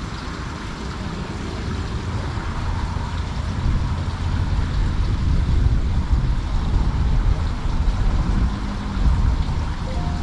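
Wind buffeting the microphone: an uneven, gusty low rumble that grows somewhat louder after a few seconds.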